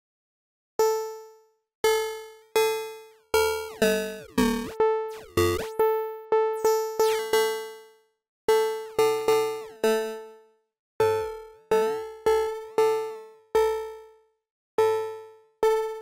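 Plucked Serum synthesizer notes, most on one repeated pitch with a few others mixed in, each with a sharp attack and quick decay, starting about a second in. They play through Serum's Downsample distortion while its mix is being turned up.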